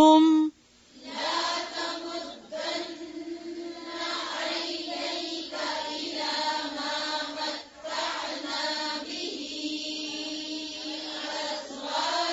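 A woman's held recitation note ends about half a second in; then a group of voices recites the Quranic verse together in chant, repeating the phrase after the teacher, with short breaks between phrases.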